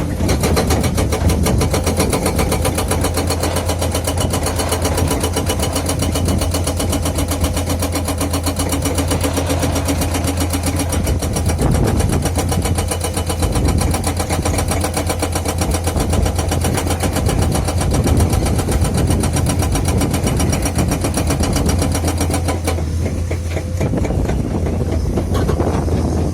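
Hydraulic breaker hammer on a Komatsu PC210-10 excavator hammering in rapid, even blows over the running diesel engine. The hammering stops about 22 seconds in, and the engine keeps running.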